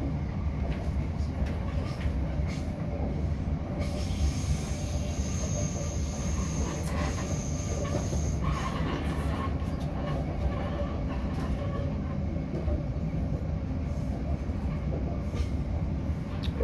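Train running noise heard from inside a passenger carriage: a steady rumble of wheels on the rails, with a high-pitched wheel squeal from about four seconds in until about eight seconds in.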